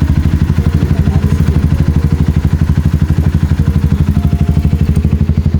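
Motorcycle engine idling steadily, with an even, rapid pulse.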